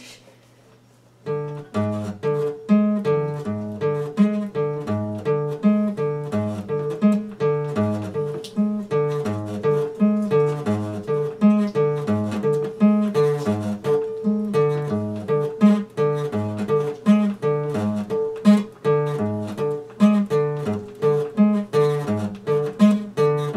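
Epiphone steel-string acoustic guitar, picked in a steady pattern of alternating bass notes under a repeated higher note. The playing starts about a second in.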